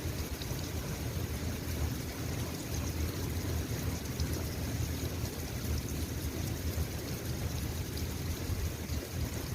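Steady rain falling, with faint scattered drop ticks over a constant low rumble.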